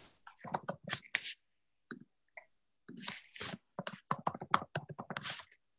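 Typing on a computer keyboard: quick runs of key clicks, a short burst at first, a few scattered taps, then a longer, denser run of typing.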